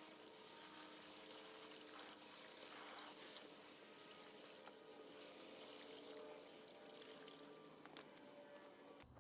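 Faint, steady hiss of water running from a garden hose, rinsing the cleaner off a reusable air filter.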